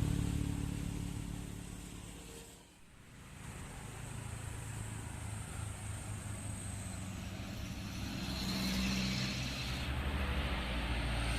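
Road vehicle engine passing and fading away, then another vehicle approaching up the road, its engine noise slowly growing louder.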